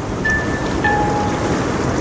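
Ocean surf washing steadily, with soft background music of long held notes over it.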